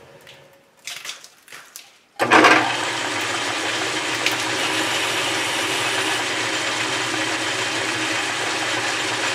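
A few light clicks, then a South Bend 11 metal lathe is switched on about two seconds in and runs steadily, its half-horsepower motor and belt drive spinning a heavy steel plate in the chuck with an even whir over a low hum.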